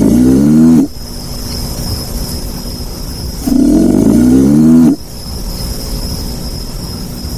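Alligator bellow: a loud growling call that falls in pitch and lasts just over a second, heard twice about four seconds apart over a steady low rumble.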